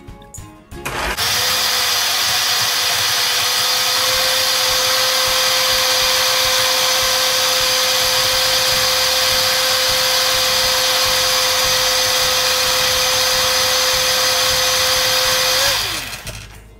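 Black+Decker countertop blender running at full speed, pureeing pandan leaves with water: the motor starts about a second in with a steady whine and whirr, then winds down with a falling pitch near the end when switched off.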